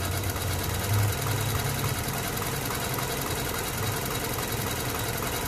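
Lexus ES330's 3.3-litre V6 idling steadily under the open hood, with the headlights, stereo and air conditioning just switched on.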